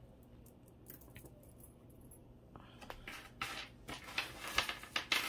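Costume jewelry being handled: light clicks and rustling as necklace chains and beads are moved, growing into a run of small clinks in the second half.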